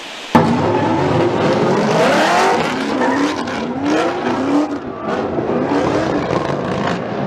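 Drift car engines revving hard in repeated rising sweeps, with tyre squeal. It starts abruptly just after the opening moment and stays loud.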